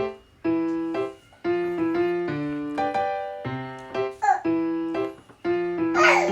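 Background music: a light piano or electric-keyboard melody of separate notes that each strike and fade, with a short pause between phrases.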